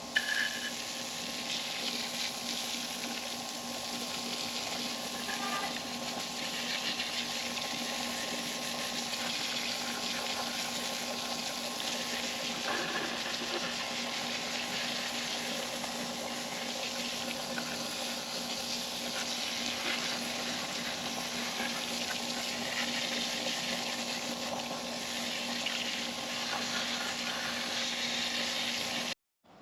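A water jet spraying steadily onto a grimy Chevrolet 350 small-block, washing off the cleaner and gunk: a continuous hiss with a steady hum underneath. It cuts off abruptly near the end.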